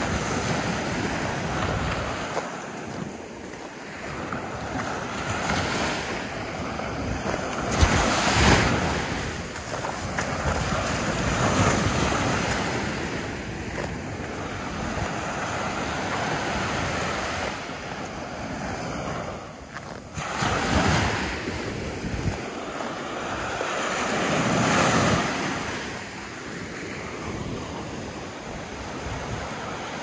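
Ocean surf breaking on a sandy shore and washing up the beach, swelling and ebbing every few seconds, with the loudest surges about a third of the way in and again past two thirds.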